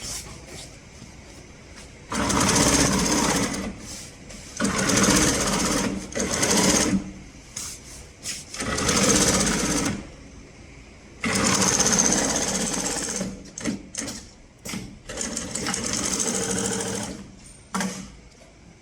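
HighTex 74420L25 double-needle, triple-feed long-arm industrial sewing machine stitching in a series of runs of a few seconds each, stopping briefly between them, with a few short stop-start bursts near the end.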